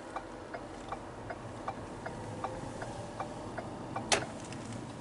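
Car's turn-signal flasher clicking steadily, about three clicks a second, over a low hum, with one louder sharp click about four seconds in.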